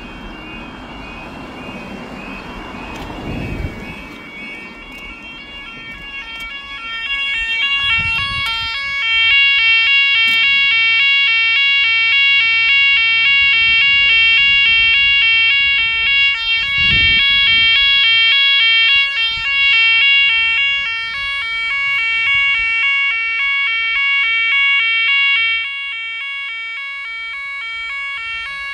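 UK level crossing warning alarm sounding: a warbling yodel alarm that becomes louder about eight seconds in and rapidly alternates between tones. Road cars pass in the first few seconds and again about seventeen seconds in.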